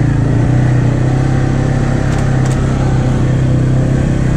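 ATV engine running steadily at an even speed while riding along, one unbroken drone with no revving up or down.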